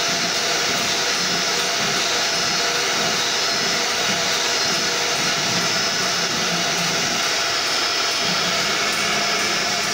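CNC router spindle running at speed while its small end mill cuts paw-print shapes into a board: a steady hiss of motor and cut with a faint high tone.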